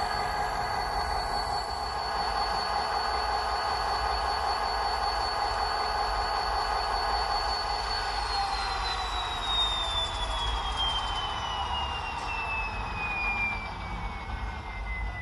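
Class 57 diesel locomotive sound played by an ESU LokSound decoder through the model's speaker: the engine runs steadily with a high whine, then about halfway through the whine and the engine note fall slowly and evenly in pitch as the engine winds down.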